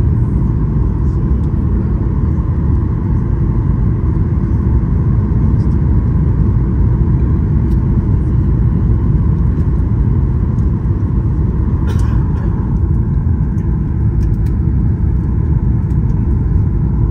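Airliner cabin noise: a steady low rumble with a faint steady whine above it and a brief click about twelve seconds in.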